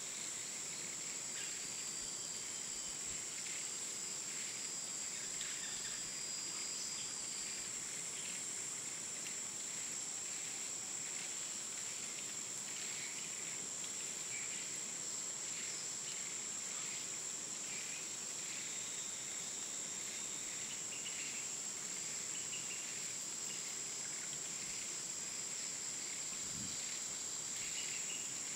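Night insects, crickets among them, trilling steadily in a continuous high-pitched chorus, with faint scattered chirps.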